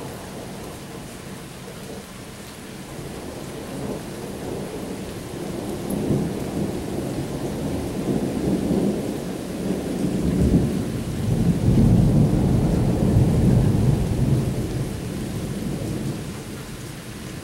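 A long rolling thunder rumble over steady rain, building for several seconds, loudest a little past the middle, then dying away near the end.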